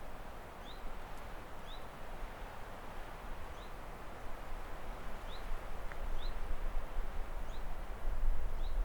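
A small songbird repeating a short, high, upward-sweeping chirp about once a second, over a steady outdoor hiss; a low rumble swells near the end.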